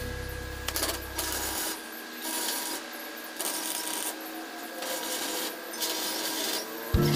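Background music, with a rough rasping, scraping sound over it that comes and goes in uneven pulses; the music's bass drops out about a second and a half in and returns near the end.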